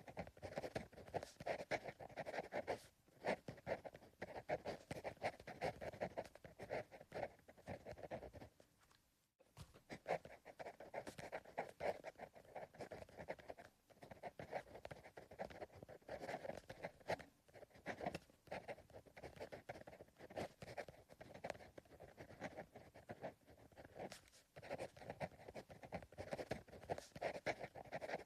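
Pencil writing on paper: soft, irregular scratching strokes in runs of several seconds, with short pauses between them, the longest about nine seconds in.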